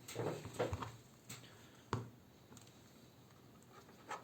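Light clicks and knocks from the plastic case of a laptop battery pack being handled and worked open: a handful in the first two seconds and one more near the end.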